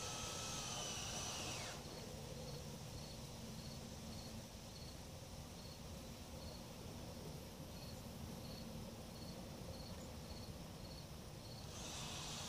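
A cricket chirping at an even pace, about one and a half short chirps a second, over a faint outdoor hiss. A brighter hiss cuts out about two seconds in and comes back near the end.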